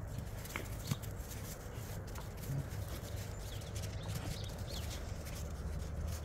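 Great Pyrenees puppies and a person moving about on thin snow over frozen, muddy ground: scattered small footfalls, scuffs and rustles over a low steady rumble.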